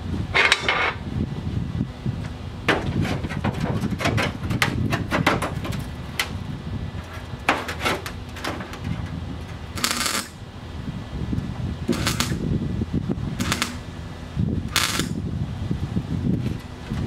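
MIG welder laying short tack welds on thin car-body sheet metal: a string of brief crackling buzzes, each about half a second, with a quicker run of short zaps between about three and six seconds in.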